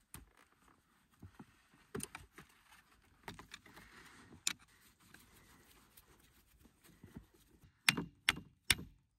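Scattered metallic clicks and clinks of hand tools and parts being handled while snowmobile carburetors are taken off, with three sharper knocks in quick succession near the end.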